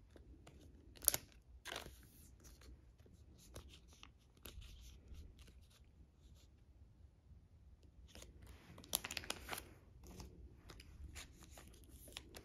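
Clear plastic photocard sleeve crinkling and clicking as a card is worked into it and pushed into a binder page pocket. There is a sharp click about a second in, and a cluster of crinkles around nine seconds.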